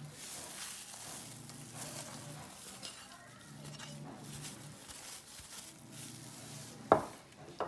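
Soft handling noises of ingredients being added to raw liver in a bowl, light rustling and taps, with one sharp knock about seven seconds in.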